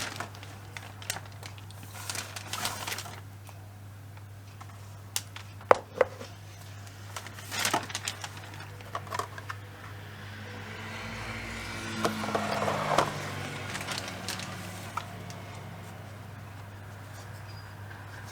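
Scattered clicks and knocks of objects being handled, with a brief stretch of rubbing and clattering a little past the middle, over a steady low hum.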